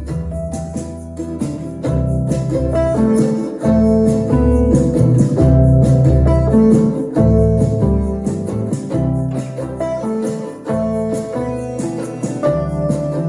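Instrumental music with plucked guitar and a changing bass line, played back through a Marantz 2250B receiver.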